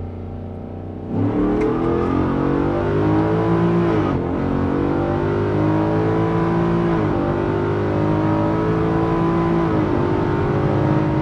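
Ford Coyote 5.0 L V8 in an F-150 breathing through a Corsa Extreme exhaust, heard from inside the cab. About a second in, the throttle opens for a hard pull: the engine note climbs, drops at an upshift, and climbs again, three times over.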